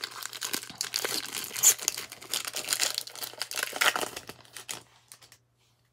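Foil wrapper of a 2004 Hot Prospects baseball card pack being torn open at its crimped end and crinkled by hand: a dense crackle and rip that stops a little over five seconds in.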